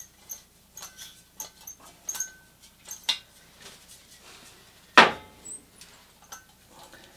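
Small metal and plastic clicks and rattles as a threaded gas cartridge and its adapter are unscrewed from a Campingaz lantern. About five seconds in comes one loud knock as the cartridge is set down on the workbench.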